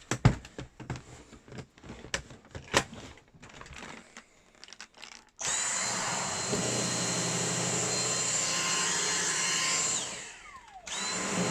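A few clicks and knocks of handling, then the motor of a Dyson V6 Animal cordless stick vacuum switches on abruptly about five seconds in and runs with a steady high whine. It is switched off after about four seconds and winds down in a falling whine, then switches on again near the end.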